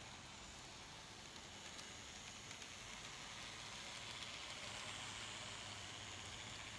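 Faint whir of N-scale model trams running on street track, their small motors and wheels growing a little louder about halfway through as one passes close.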